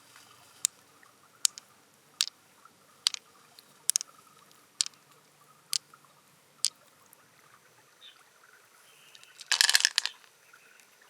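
A series of sharp clicks at an even pace, about one a second, eight in all, then a louder, longer scraping burst near the end.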